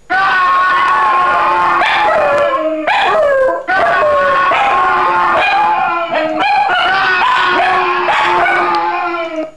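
Dog howling in long, wavering howls along with a played sound effect, with a brief break about three and a half seconds in.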